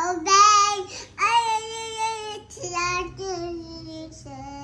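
A toddler girl singing in a high, childlike voice, with one note held for over a second; the phrases grow softer near the end.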